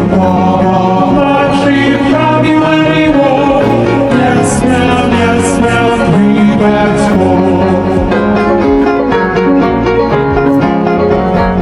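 Nursery-rhyme music with singing over an instrumental backing.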